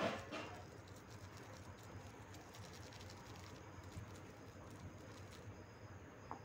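A Maggi masala foil sachet crinkling briefly at the start, then faint light pattering as the seasoning is tapped out over a small bowl of hot water.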